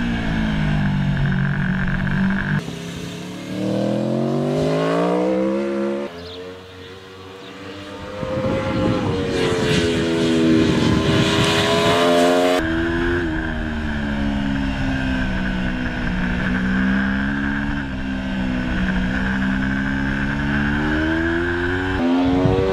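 Aprilia Tuono V4 1100 Factory's V4 engine being ridden hard on a racetrack, its pitch climbing under acceleration and falling as the throttle is closed. The sound changes abruptly a few times.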